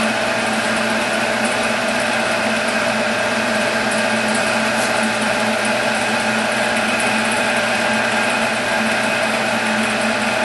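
Monarch 10EE tool room lathe running under power, its spindle drive and gearing giving a steady, even whine made of several tones, with the carriage feeding on the engaged half nut.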